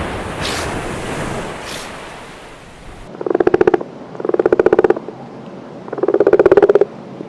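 Animal calls: a hissy stretch with two short bursts, then, after a cut about three seconds in, three loud, rattling calls, each about half a second long and made of rapid pulses.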